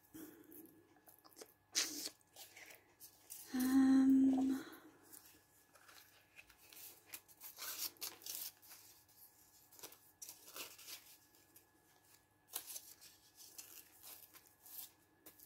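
Crumpled aluminium foil and paper crinkling and rustling in short, scattered bouts as they are handled and pressed onto a journal page. About four seconds in, a brief hummed "mm" of about a second is the loudest sound.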